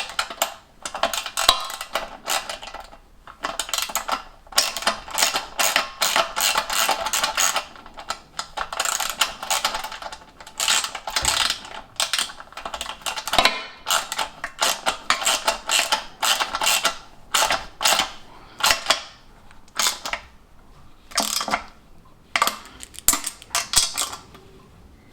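Ratchet spanner clicking in quick runs as 10 mm bolts are tightened, with short pauses between runs.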